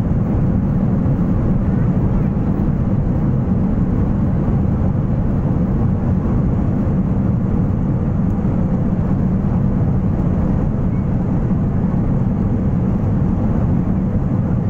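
Steady low rumble inside the cabin of an Airbus A330-200 rolling out on the runway just after touchdown: engine noise mixed with wheel rumble from the landing gear.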